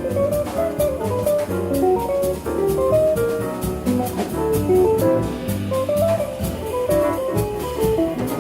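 Small jazz group playing live: a fast single-note solo line over double bass and a drum kit with steady cymbal strokes.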